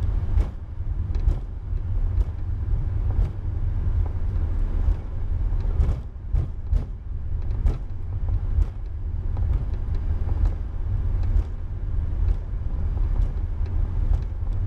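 Airbus A340-300 taxiing, heard from inside the flight deck: a steady low rumble, with a short knock about once a second.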